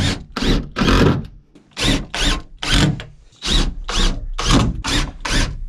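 Power drill driving screws into wood framing in a run of about a dozen short trigger bursts, each with a quick rise and fall in motor pitch.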